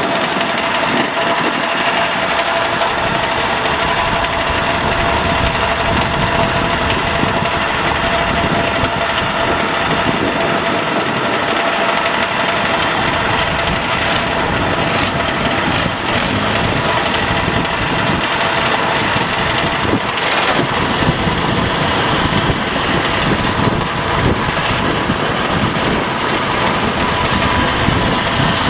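Diesel engine running steadily at an even speed, without pauses or changes in pitch.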